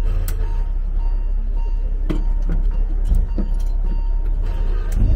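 Alishan Forest Railway train carriage rumbling low and steady from inside as the train moves, with a few clunks and knocks from the running gear and couplings, the train shunting back and forth.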